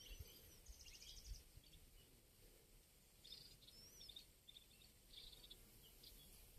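Near silence with faint birds chirping: short calls and quick trills, one a rising-and-falling whistle about four seconds in. A few soft low thumps near the start.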